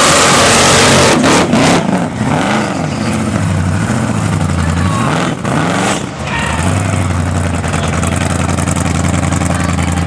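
Supercharged burnout car's engine at full throttle with the rear tyres screeching in a loud wash of noise, which drops away after a second or so. The revs then swing up and down several times as the driver backs off, and settle to a steady idle about six and a half seconds in.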